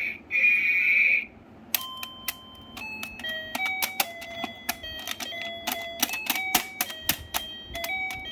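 Bunny-shaped toy electronic keyboard: a shrill electronic ringing effect for about the first second, then keys pressed one after another, each giving a short electronic beep-like note at a different pitch.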